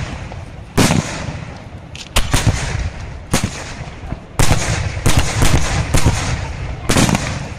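Aerial fireworks shells bursting overhead: about nine loud bangs at irregular spacing, several coming close together in the second half, each followed by a rumbling tail.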